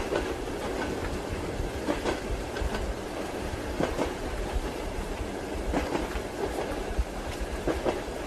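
Train wheels clacking over rail joints, with sharp knocks every second or two over a steady rumble of the running carriage, mixed with soft steady rain.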